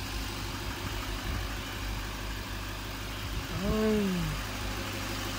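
Truck engine idling with a steady low hum; a person's voice briefly sounds about three and a half seconds in.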